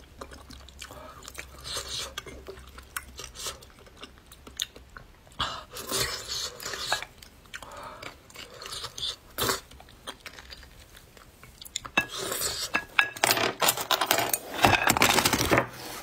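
Close-up eating sounds: a metal spoon scraping and clinking inside cut marrow bones, with wet chewing of the marrow. The clicks and mouth sounds come thicker and louder near the end.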